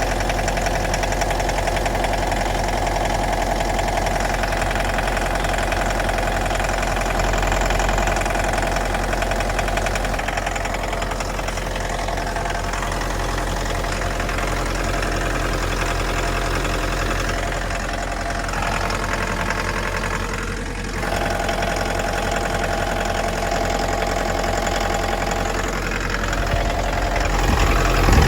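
Mitsubishi L200's 2.5-litre diesel engine running steadily with a knock, the engine knock that the inspection flags as a fault.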